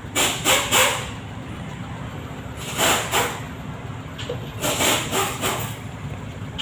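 Hand-stitching a running shoe's sole: thread drawn through the rubber and pulled tight in short rasping pulls, two or three at a time, in three groups. A low steady hum runs underneath.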